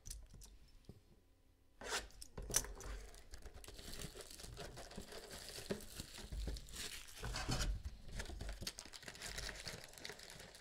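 Plastic shrink wrap being torn and crinkled off a sealed Panini Classics football trading card box, a continuous crackling rustle with small clicks that starts about two seconds in.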